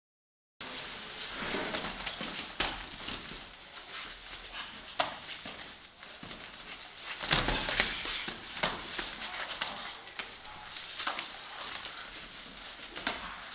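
Grappling on training mats: bodies and hands scuffling, with scattered thumps and slaps over a steady hiss, after a short silence at the start.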